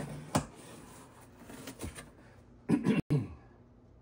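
A knife slitting the packing tape on a cardboard shipping box, with short scrapes and cracks of tape and cardboard; the loudest is a cluster of cracks about three seconds in.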